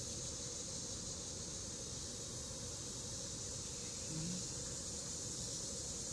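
Steady high-pitched chorus of summer insects, a constant buzzing hiss, over a low background rumble.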